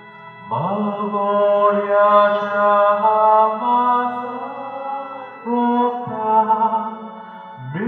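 A hymn sung in long, slow, held notes, with new phrases starting about half a second in, about five and a half seconds in, and again near the end.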